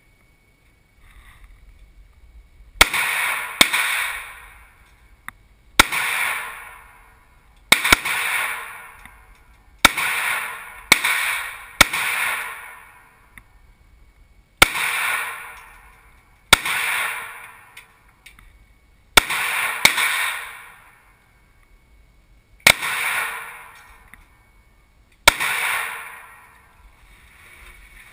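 Smith & Wesson SW9VE 9 mm pistol being fired, about a dozen single shots spaced one to three seconds apart. Each shot is loud and rings on for about a second in the enclosed indoor range.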